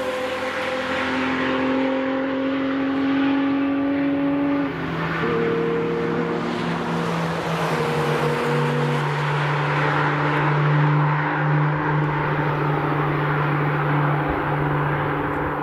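Cars lapping a race track at speed: one passes close at the start, its engine note falling away, and engines then run on at a steady high-speed drone, stepping in pitch a few times.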